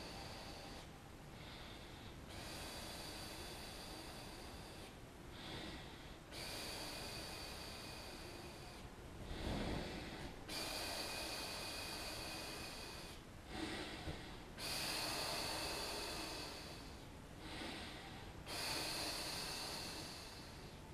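A large globe-print balloon being blown up by mouth: six long blown breaths of rushing air, each a few seconds long, with short pauses for inhaling between them.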